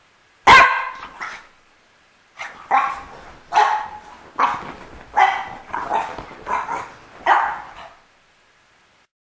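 French bulldog puppy barking: one loud bark about half a second in, then after a short pause a string of about eight barks, a little more than one a second.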